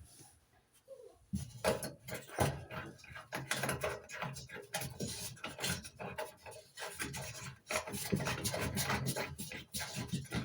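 New oven bulb being screwed by hand into its socket: irregular scraping and rubbing of the threads turning, with a brief pause about three-quarters of the way through, stopping once the bulb is tight.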